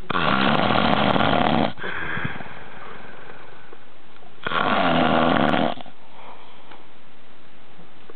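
A man passed out drunk, snoring loudly: two long snores about four seconds apart, the first trailing off into a quieter breath.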